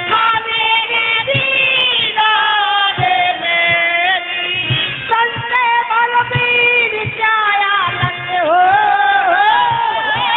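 A man singing a Hindi devotional bhajan into a microphone, amplified through loudspeakers, with drum strokes beating beneath the voice.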